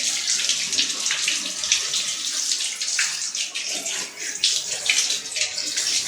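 Water running and splashing onto a split AC's mesh air filter, rinsing the dust out with plain water; a steady, uneven spattering rush.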